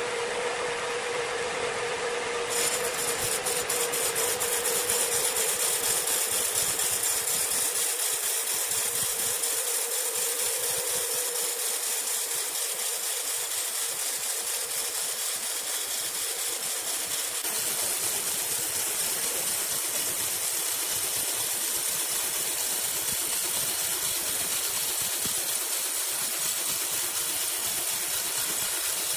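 Horizontal band sawmill blade cutting lengthwise through a large green ironwood log: a steady, loud hiss of the blade in the wood, with a tone that fades out over the first several seconds.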